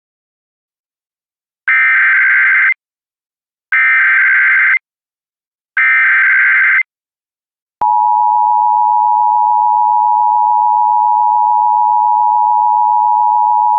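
Emergency Alert System tones for a fire warning: three one-second bursts of screechy SAME digital header data about two seconds apart, then the steady two-tone attention signal starting sharply about eight seconds in.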